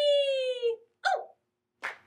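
A high-pitched voice holds a long note that slides slowly down and stops under a second in, followed by a short falling yelp and a brief breathy burst near the end.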